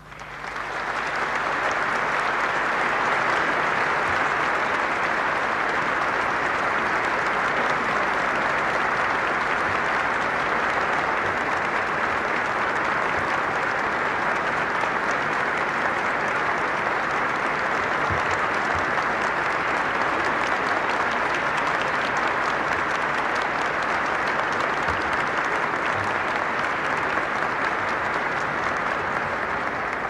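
Large crowd applauding steadily. The clapping swells up within the first second, holds even for the whole stretch and eases slightly near the end.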